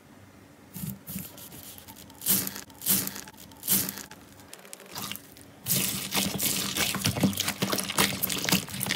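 Hands squishing and pressing clear slime loaded with white foam beads, giving wet, sticky squelches and crunching. There are a few separate presses at first, then continuous kneading and stretching from about six seconds in.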